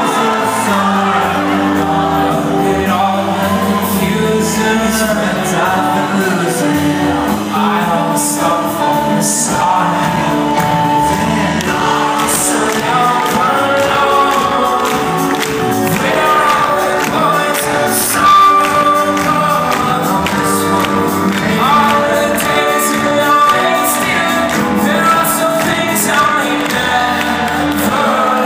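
Live pop band playing loud: keyboards, electric guitars and drums under a singing lead voice, recorded from within the crowd.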